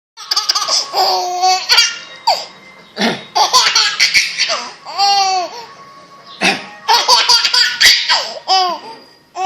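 Toddler laughing in high-pitched fits, several bursts with short pauses between.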